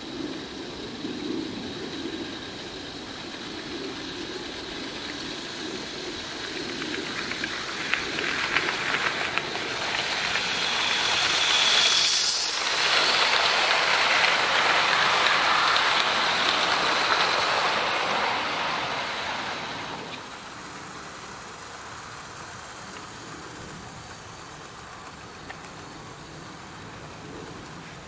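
A model class 47 diesel locomotive and its coaches running along garden railway track: the motor and wheels on the rails grow louder as the train comes by, stay loud for several seconds as it passes close, then drop away suddenly about two-thirds of the way through.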